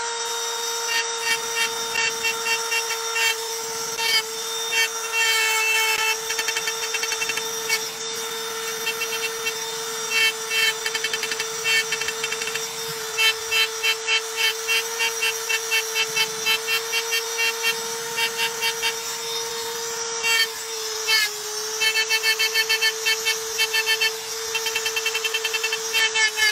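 Handheld power engraving tool running with a steady high whine as it cuts a design into polished granite, with repeated bursts of rapid clicking as the bit works the stone.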